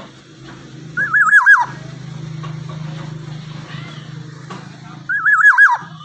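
Black-naped oriole giving two loud, fluty whistled calls about four seconds apart. Each is a quick wavering phrase ending in a downward slide. A steady low hum runs underneath.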